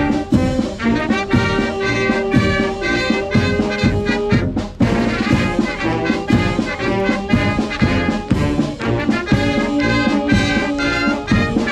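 Brass band music, with brass holding pitched notes over a steady drum beat.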